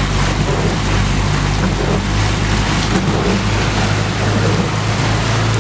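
Jeep engine running steadily in first gear while driving through deep flood water, with water rushing and splashing around the vehicle.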